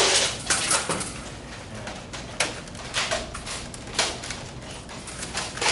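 Nerf Rival blasters firing foam balls during a team battle, an irregular string of sharp snaps and knocks as shots go off and balls hit walls and players.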